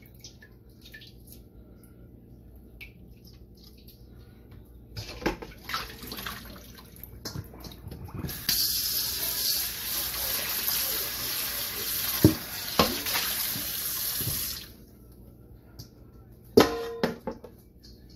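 Kitchen faucet running into a stainless steel mixing bowl as it is rinsed in the sink, with knocks of the bowl against the sink. The water runs steadily for about six seconds and is shut off, and a single ringing metal clank follows near the end as the bowl is set down.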